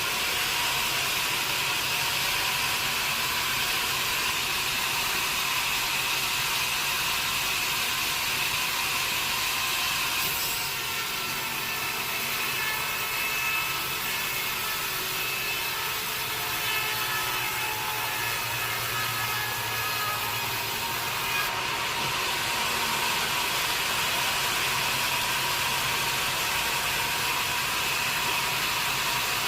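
A sawmill saw cutting steadily through a teak log, with a high, steady whine over the noise of the cut. The sound shifts briefly about ten seconds in and again about twenty-one seconds in.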